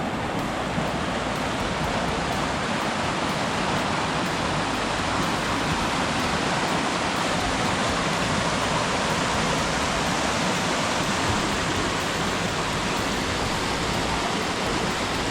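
Rushing water, a waterfall or fast-flowing creek, making a steady, unbroken rush.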